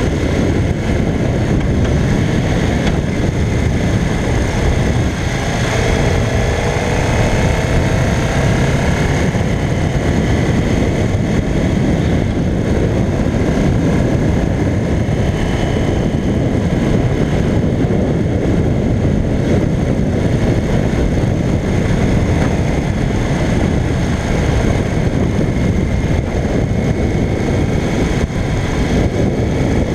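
A 1985 Honda CBX 750P's engine running at road speed under a steady, loud rush of wind and road noise on the bike-mounted camera. A faint engine note rises for a few seconds about six seconds in.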